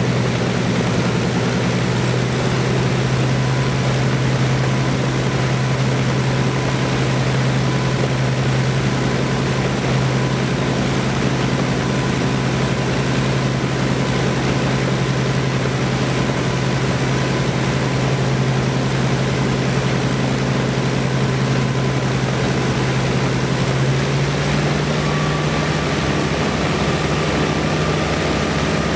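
Rolls-Royce Griffon V12 engine of a P-51 Mustang running steadily on a ground test run, propeller turning, on the first run of the freshly rebuilt engine. Near the end the engine speed rises slightly and holds.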